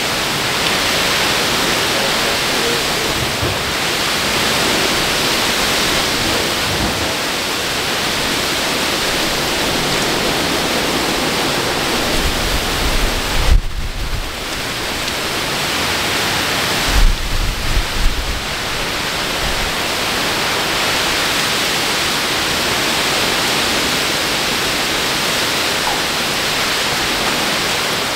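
Severe thunderstorm: heavy wind-driven rain makes a steady, loud hiss, with strong wind gusts the speaker puts near 50 mph. Two short bursts of low rumble come about halfway through.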